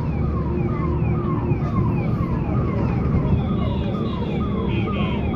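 An electronic siren-like tone repeating about twice a second, each call falling in pitch, over a steady low rumble like vehicle noise. A higher steady tone joins near the end.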